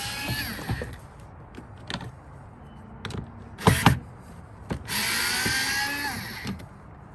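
A small electric motor whirring in two runs of about two seconds each, one at the start and one about five seconds in, its pitch drifting as it runs. Between them, a little before four seconds in, come a few sharp knocks.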